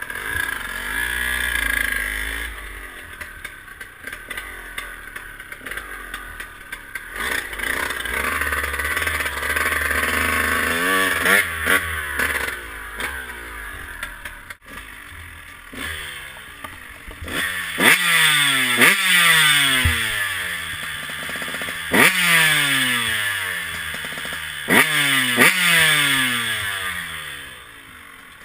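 2012 KTM 150 SX's 144 cc two-stroke single-cylinder engine, warmed up, being revved: a string of sharp throttle blips, each shooting up in pitch and falling back, coming thickest in the second half.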